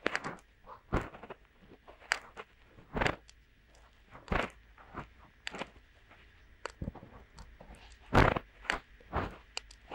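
Fingertips rubbing and scratching inside both silicone ears of a binaural microphone, as finger ear-cleaning: irregular soft scratchy rustles, with a louder stroke about eight seconds in.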